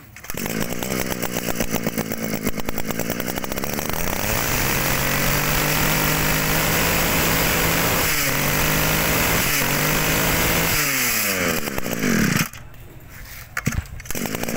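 Hitachi CG24E 24cc two-stroke brush cutter engine running. For about four seconds it runs at a lower speed with rapid firing, then revs up to a steady high speed with two brief dips. About eleven seconds in it winds down, falling in pitch, and cuts off about a second later.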